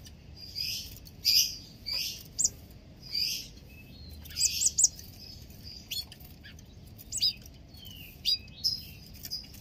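Small caged songbirds chirping: short, sharp, high call notes at irregular intervals, some in quick pairs and triples.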